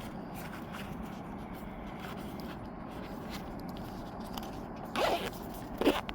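Two short rasping scrapes, about a second apart near the end, over a steady low background rush.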